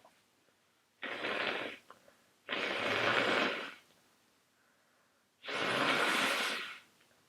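Three loud, noisy breaths through a runny, congested nose from a person with a cold, each about a second long; the last two are the loudest.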